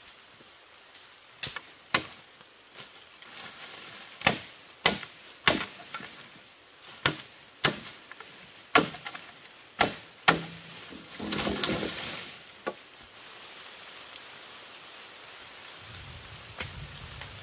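Wood being chopped with a blade: about a dozen sharp, separate strokes at uneven intervals, with a longer crackling rustle about two-thirds of the way through. The chopping stops after that.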